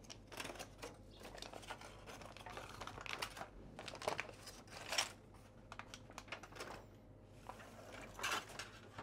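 Knife slicing through a rested, medium-cooked flank steak: faint, irregular short cutting strokes and taps, a few of them louder.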